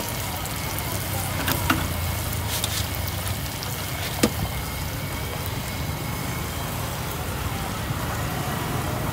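Hot oil sizzling steadily in a wok of frying insects, over a steady low hum of street traffic, with two sharp clicks, one about a second and a half in and one about four seconds in.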